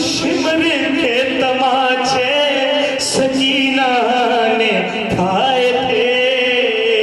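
A man's solo voice chanting an Urdu elegy in a sung style, in long continuous phrases with wavering, ornamented notes.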